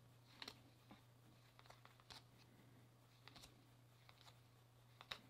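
Faint, irregular flicks and slides of paper baseball cards as a stack of 2021 Topps Series 1 cards is thumbed through by hand, card by card, over a steady low hum.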